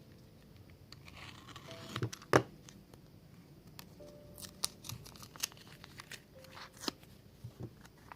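Packaging being handled and torn open, with crinkling and a scatter of sharp clicks and taps.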